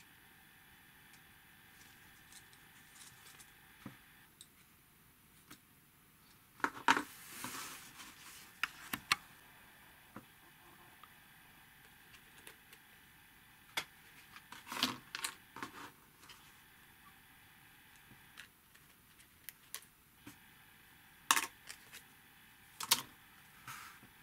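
Stiff printed card being handled by hand, pieces pressed out of a die-cut sheet and folded: scattered sharp snaps and short rustles, in clusters about a quarter of the way in, around the middle and near the end.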